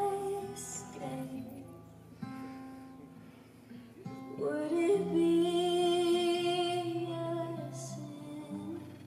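Music: a woman singing over acoustic guitar, holding one long, slightly wavering note through the middle.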